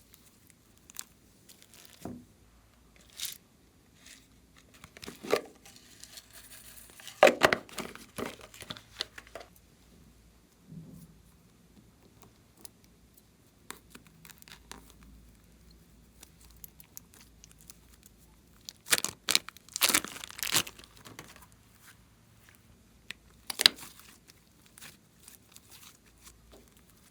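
Slime being worked by hand, sticky crackling and popping in scattered clicks, with louder bursts about a quarter of the way in, again past two-thirds, and once more near the end.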